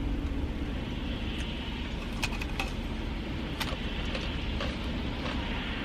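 Steady low hum of a car's idling engine heard from inside the cabin, with a few short clicks and crunches from eating scattered through it.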